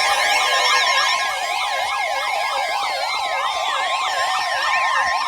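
Several electronic sirens layered together, each sweeping rapidly up and down in pitch, over steady alert tones. Near the end, a couple of tones glide downward.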